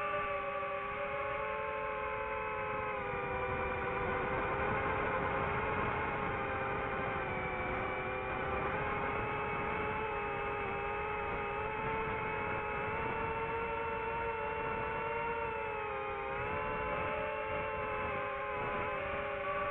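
FPV quadcopter's brushless motors and propellers whining steadily as several stacked tones, the pitch drifting slightly up and down and dipping briefly about three quarters of the way through.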